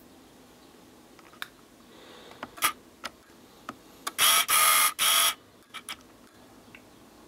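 Handling noise: a few light clicks and taps, then a loud rustling scrape about four seconds in lasting about a second, followed by a couple more clicks, as a hard plastic compressor valve plate is turned in the hand close to the microphone.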